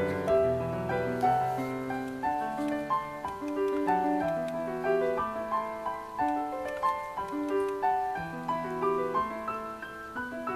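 Instrumental piano background music: a melody of separate notes over lower bass notes, with no singing.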